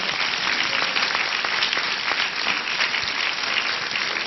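Audience applause: a large crowd clapping steadily.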